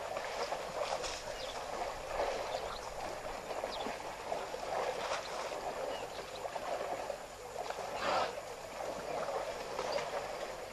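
African elephants splashing and sloshing in a muddy waterhole: a steady rush of moving water, with louder splashes about five and eight seconds in.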